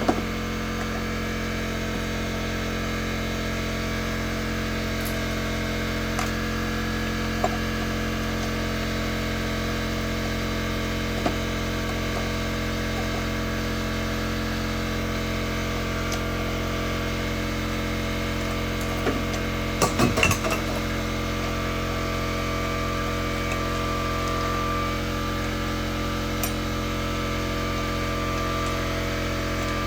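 A steady hum with several fixed pitches, with a few light clicks and a short clatter of hand tools or metal parts about twenty seconds in.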